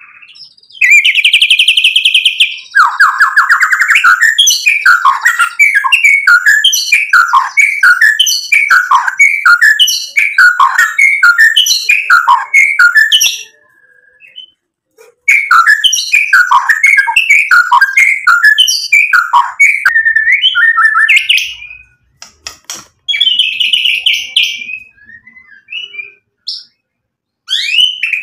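White-rumped shama (murai batu) singing loudly: long runs of rapid, repeated down-slurred whistled notes, about two a second. The song breaks off briefly about halfway through, then returns in shorter phrases with quick rising sweeps near the end.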